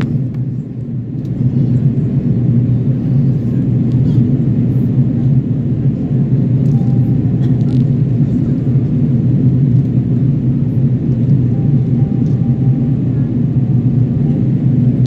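Steady cabin noise of an Airbus A330-300 in flight, heard from a window seat behind the wing: a loud low rumble and hiss from its two Rolls-Royce Trent 772B engines and the air rushing past the fuselage, dipping briefly about a second in.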